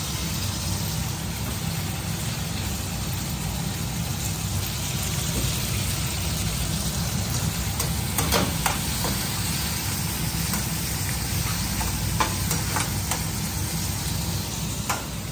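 Chopped tomatoes, onions, garlic and dry chillies sizzling in hot oil in a kadai while being stirred. A metal spatula scrapes and taps against the pan a few times, over a steady low hum.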